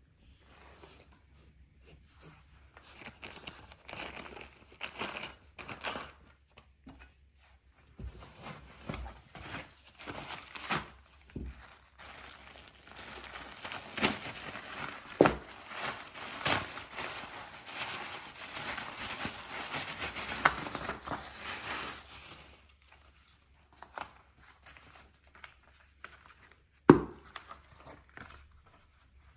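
Packaging being handled: plastic wrap crinkling and tearing, with scattered clicks, and one sharp knock near the end.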